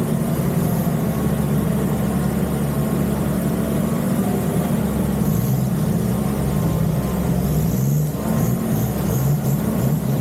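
Nissan Patrol Y61's engine running steadily under load, its pitch wavering up and down with the throttle.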